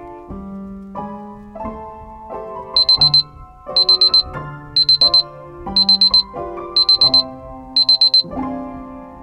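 Digital alarm clock beeping: six groups of four quick high beeps, about one group a second, starting about three seconds in and stopping a second before the end, over piano music.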